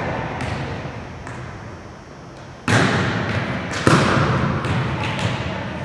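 Volleyballs being struck and passed in a gymnasium: a couple of light hits early, then two sharp, loud hits about a second apart near the middle and a few lighter ones after, each echoing through the hall.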